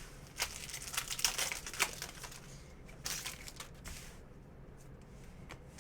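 Crinkling and rustling of a foil trading-card pack being handled and torn open, in two spells of crackling.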